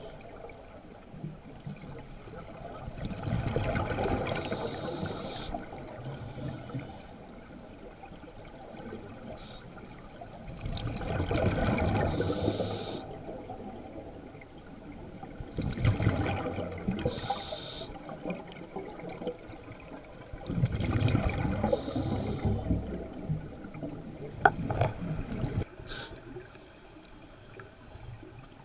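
Scuba diver breathing through a regulator underwater: a short hiss on each inhale and a rush of exhaled bubbles, in breaths that come round every four to six seconds.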